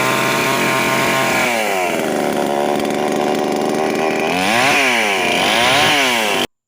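Chainsaw engine running fast, dropping to a lower speed about a second and a half in, then revved up and back down twice before cutting off abruptly near the end.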